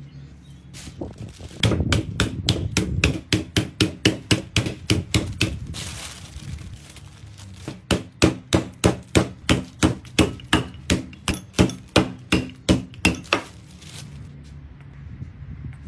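A wooden rolling pin pounding beef steak flat through plastic wrap: rapid, even thuds about three a second, in two runs of several seconds with a short pause between.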